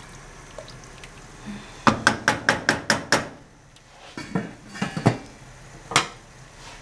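A wooden spoon knocked about seven times in quick succession against the rim of a stainless steel cooking pot, then the pot's metal lid clattering as it is set back on, with one last sharp clink near the end.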